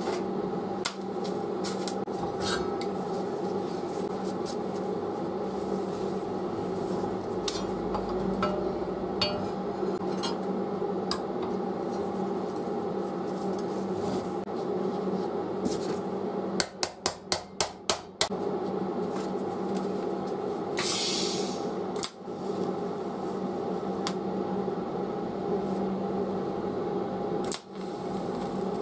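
Steel parts and tools clinking and knocking against a bench vise over a steady hum. A little past halfway comes a quick run of about seven sharp clicks, and a few seconds later a short hiss.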